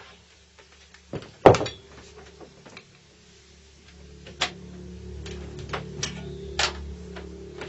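Rework bench equipment being handled, giving a few knocks and clacks, the loudest about a second and a half in. From about four seconds in, a steady electric hum with a low drone starts and grows a little louder.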